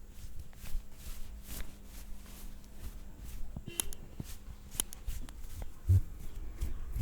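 Hands massaging a person: soft irregular rubbing with scattered light taps and clicks, and one dull thump about six seconds in.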